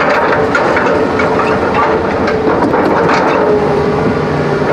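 Motor vehicle engine running steadily, heard from inside the cab, with a faint wavering whine and scattered light clicks over it.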